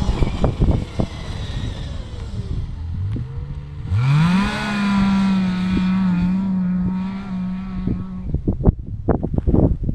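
Snowmobile engine throttled up, its pitch rising twice about three and four seconds in, then held at steady high revs for about four seconds. Wind buffets the microphone before and after.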